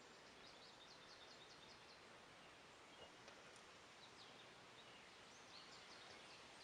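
Faint outdoor background hiss with a small bird singing quick trills of repeated high notes, twice.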